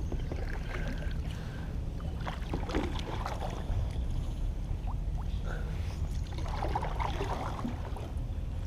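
A kayak moving on creek water: faint splashes, drips and small knocks over a steady low rumble.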